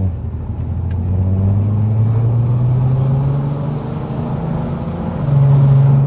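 Audi TT's 3.2-litre V6 engine with DSG gearbox accelerating hard, heard from inside the cabin. The engine note rises steadily in pitch for about four seconds, breaks at a gear change, then comes back louder near the end.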